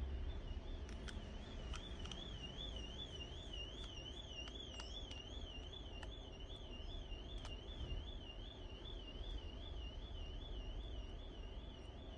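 A steady, high alarm-like tone that warbles rapidly and evenly up and down, with a few faint clicks.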